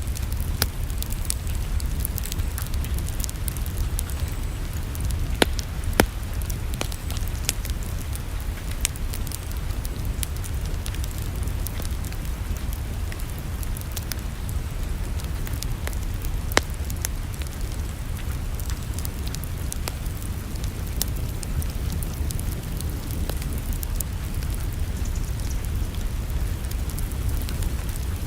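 Wood fire crackling in a fireplace: a dense scatter of sharp pops and snaps, a few of them louder, over a steady low rumble.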